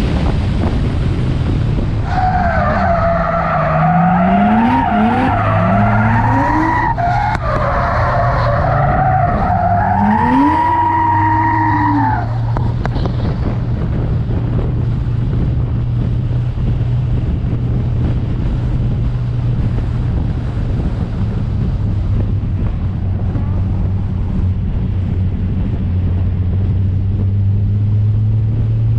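Nissan Skyline R32 drift car heard on board: the tyres squeal in a long wavering screech while the engine revs rise and fall through a drift. The squeal stops about twelve seconds in, and the engine then runs at a steady, even note.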